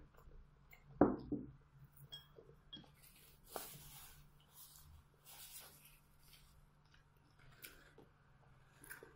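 A porcelain bowl set down on the table with a knock about a second in, then the soft rustle of a paper tissue wiping the mouth, with small handling clicks.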